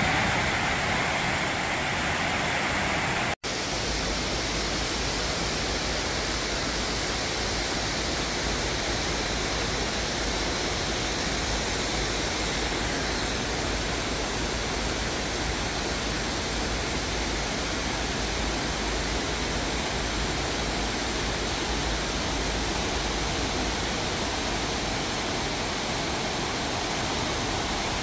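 Steady rush of river water spilling over a low dam and through shallow riffles. It breaks off abruptly about three seconds in and resumes at once as a slightly different, even rush.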